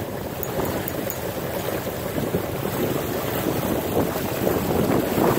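Steady rushing of water as a sailboat's bow pushes through the river, mixed with wind buffeting the phone's microphone, growing a little louder near the end.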